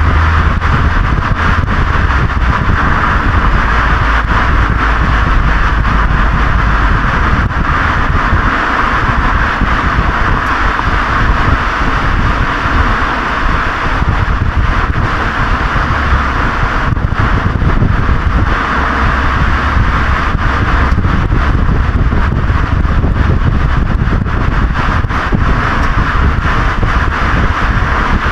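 Honda Legend V6 exhaust heard right at the muffler tip while driving, a low rumble that eases off for several seconds in the middle, mixed with steady wind noise on the microphone and tyre noise from the road.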